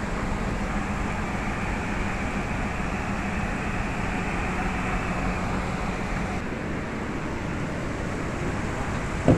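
Steady rushing noise with a faint low hum under it, and one short sharp knock near the end.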